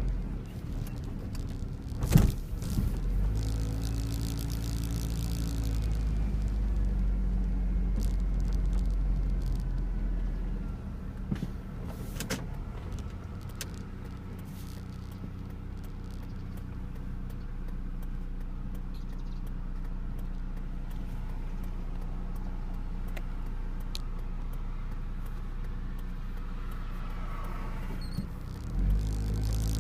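Steady low hum of a car's engine and road noise heard from inside the car. A sharp knock comes about two seconds in, and faint scattered clicks follow.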